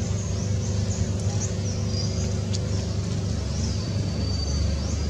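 A steady low rumble like a motor vehicle engine running, with high, short chirps and a thin whistle repeating over it.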